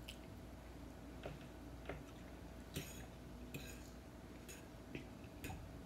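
A person eating: faint, scattered clicks of a metal fork against a plate, with chewing, about seven small clicks in all.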